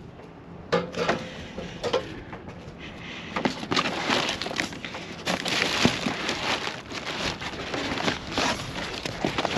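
Cardboard boxes and packaging being shoved aside and rummaged through by gloved hands inside a dumpster: a busy run of rustles, scrapes and knocks, busier from about three and a half seconds in.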